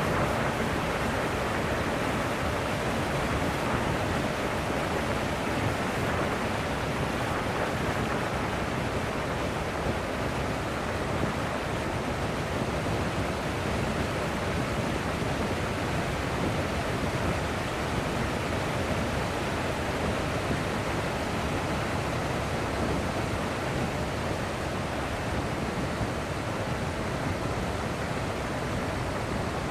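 Steady rushing wind noise on the microphone of a camera riding on a moving vehicle, even throughout, with no engine note or voices standing out.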